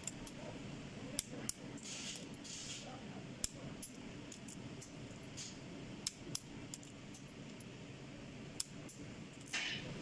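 Sharp metallic clicks and clinks from a torque wrench and socket on the cylinder head bolts, spaced about a second or more apart, over a steady low hum. This is the final tightening of the head bolts to 95 N·m.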